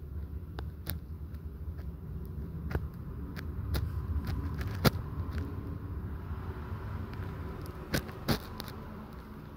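A low steady rumble with a few sharp clicks: the loudest click comes about five seconds in, and two more close together about eight seconds in.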